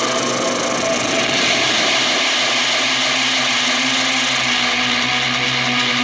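A steady, dense, distorted drone of held tones over a noisy wash, from a song playing back out of a music production program, heard through speakers. It thickens a little over a second in.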